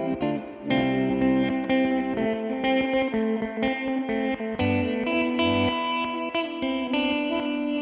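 Electric guitar played through effects, a flowing line of picked notes and chords.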